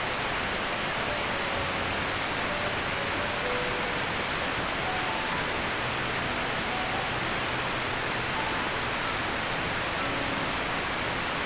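Steady rushing of Asik-Asik Falls, a wide waterfall pouring out of a green cliff face.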